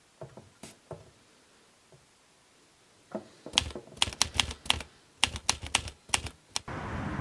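A series of sharp taps and clicks, typing-like: a few scattered ones in the first second, then a quick run of about a dozen from about three and a half seconds in.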